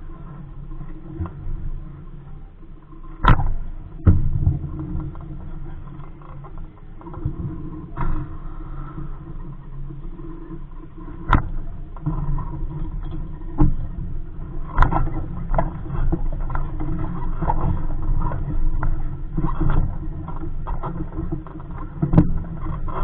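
Scattered sharp knocks and clatter from a small sailboat's hull and fittings as it is handled at a dock, over a steady low rumble of wind on the microphone.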